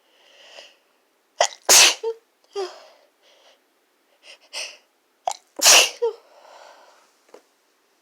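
Two loud sneezes about four seconds apart, each preceded by a quick intake of breath, with quieter breathy sniffing between them: the sneezing of a sniffly nose.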